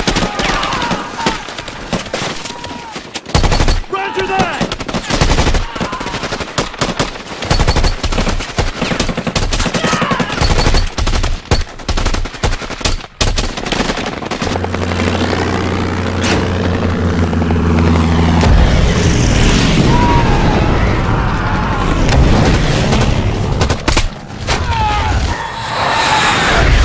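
War-film battle soundtrack: rapid rifle and machine-gun fire with men shouting. About halfway through, a sustained low drone swells in under the continuing gunfire.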